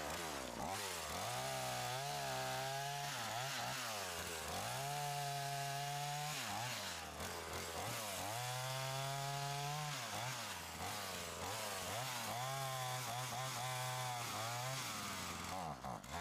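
A small engine revving up and holding a steady pitch for a couple of seconds, then dropping back, about four or five times over.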